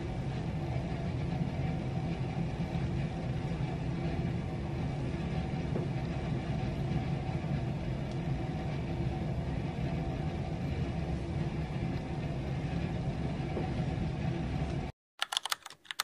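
Steady low mechanical hum with a hiss over it, cutting off abruptly near the end, followed by a few quick bright dings.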